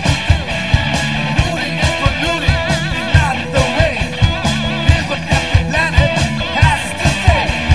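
Live band playing rock music: electric guitars over a steady drum beat, with a wavering lead melody weaving through the middle.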